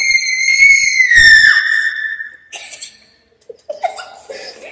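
A girl's long, high-pitched scream of fright, held on one pitch and tailing off about two seconds in, followed by faint voices.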